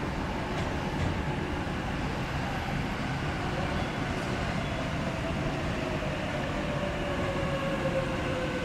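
E655 series Nagomi electric train pulling slowly into the station over a steady rumble of wheels on rail, with its motor whine falling slowly in pitch as the train slows.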